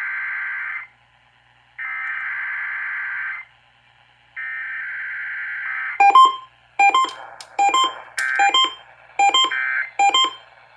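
Emergency Alert System test signal on broadcast radio. It opens with the three bursts of SAME header data tones, each about a second and a half of buzzy warbling. From about six seconds in comes a string of short, sharp beeps, about two a second.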